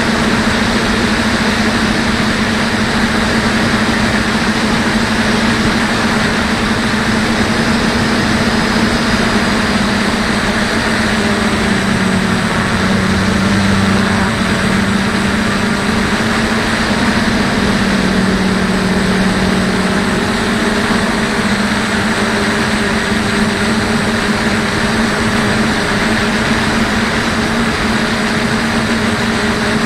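DJI F450 quadcopter's brushless motors and propellers running with a steady drone, the tone dipping slightly in pitch a couple of times in the middle.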